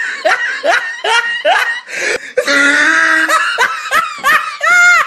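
A person laughing hard in a high-pitched fit, with quick rising-and-falling 'ha' sounds about four a second. There is a brief catch of breath about two seconds in, and the fit ends in a drawn-out arched squeal near the end.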